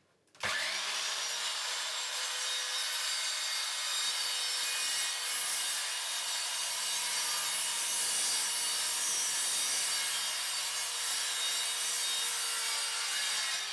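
Handheld circular saw starting up and ripping lengthwise through a long wooden panel, running steadily under load, and slowing near the end as the cut finishes.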